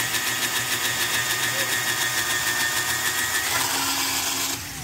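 Black & Decker cordless drill running under load, its twist bit boring through wardrobe board. The motor's note shifts about three and a half seconds in, and it stops near the end, spinning down.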